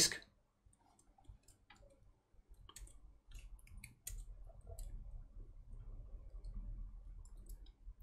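Faint, scattered clicks of laptop keyboard keys being pressed, with a faint low hum coming in about halfway.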